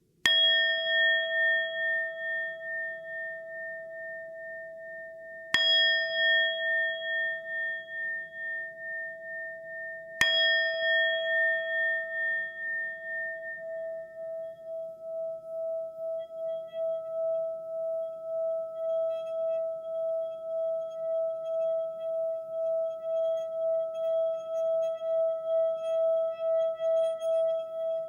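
Singing bowl struck three times, about five seconds apart, each strike leaving a long ringing tone that wobbles in loudness. In the second half the tone swells again without a new strike, over a faint low hiss.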